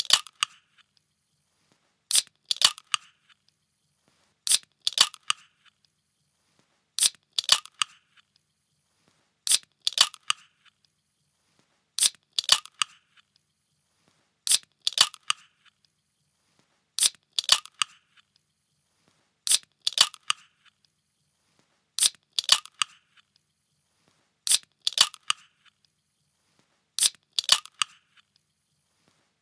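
A pull-tab drink can being cracked open over and over: each time a sharp click followed by a short hiss. It repeats about every two and a half seconds, around a dozen times.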